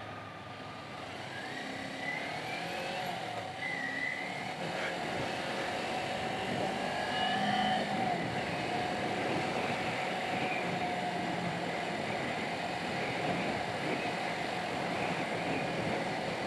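Sport motorcycle being ridden through traffic: its engine running under the rider, mixed with road and wind noise, the engine note gliding up and down in pitch now and then and growing a little louder over the first few seconds.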